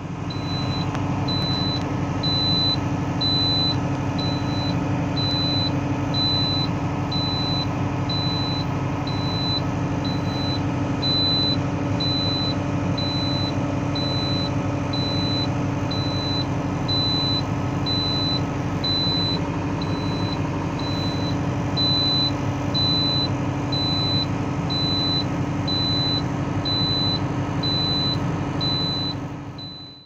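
Valtra BM 110 tractor's transmission oil warning buzzer beeping over and over at a high pitch, a little faster than once a second, over the steady hum of the tractor's diesel engine running. The alarm signals a transmission oil warning.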